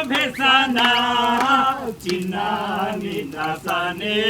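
People singing a chant-like folk song together, their voices rising and falling in short phrases with brief breaks between them.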